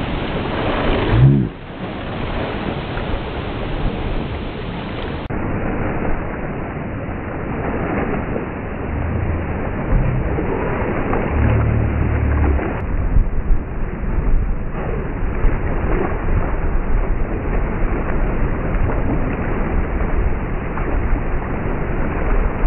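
Strong wind buffeting the microphone over the rush of water along a sailboat's hull as it sails fast in high winds, with low rumbling gusts.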